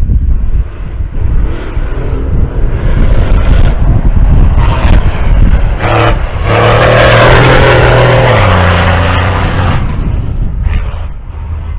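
Rally truck's diesel engine passing close at speed, loudest in the middle and its engine note dropping as it goes by, with wind buffeting the microphone throughout.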